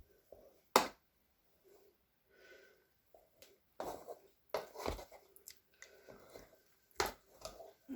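Kitchen handling noise: a few sharp knocks and clicks, the loudest about a second in and near the end, with quieter rustling and shuffling between.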